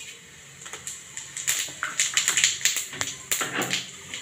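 Cumin seeds sizzling and crackling in hot oil in a kadai, a quick, irregular run of sharp pops that starts about half a second in and grows denser.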